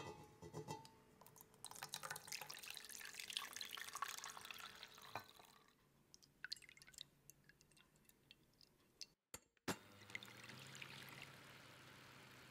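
Hot water poured into a steel bowl around a glass measuring jug, splashing and trickling for the first few seconds, then a quieter pour of egg whites into a glass bowl. About ten seconds in an electric hand mixer starts beating the egg whites with a steady low hum.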